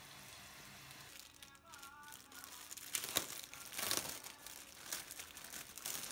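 Crinkling and rustling in irregular bursts, loudest around three to four seconds in, with a brief high voice about a second and a half in.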